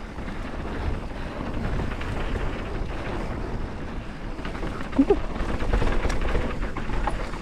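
Wind buffeting a helmet-camera microphone over the rumble and clatter of a mountain bike riding fast down a rocky trail, its tyres chattering over stones and gravel.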